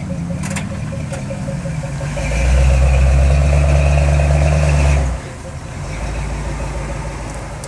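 Off-road vehicle's engine running, rising about two seconds in to a louder, steady pull under load for about three seconds, then dropping back.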